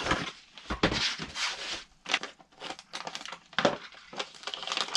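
A kraft-paper mailing envelope being torn open and crinkled by hand, then a small plastic bag rustling as it is pulled out: an irregular crackling with a few sharper, louder rips.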